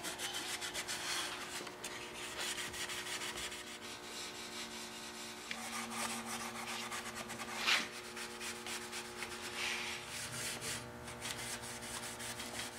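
Steel wool pad rubbing paste wax into the old finish of a wooden chair with light pressure: continuous scratchy back-and-forth scuffing, with one louder scrape about eight seconds in.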